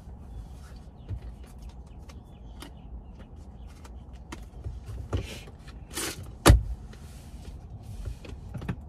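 Low steady rumble inside a car's cabin, with scattered small clicks and rustles as someone shifts in the seat, and one sharp thump a little past halfway.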